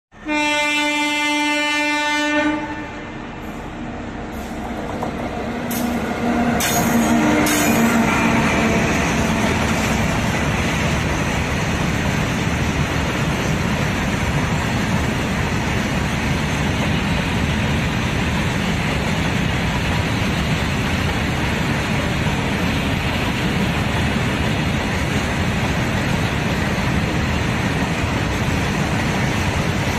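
A locomotive horn sounds for about two and a half seconds. A few seconds later a high-speed freight train rushes past with a loud, continuous rumble of wagons and wheels on rail, with clickety-clack. A fainter tone comes briefly as the train arrives.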